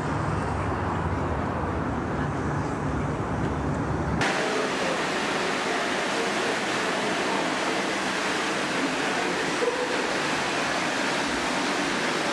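Low, steady rumble of city traffic that cuts off about four seconds in, replaced by the steady rush of shallow water flowing down a sloped walkway.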